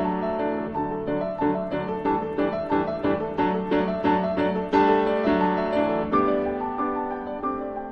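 Background piano music: notes struck in a steady, even rhythm.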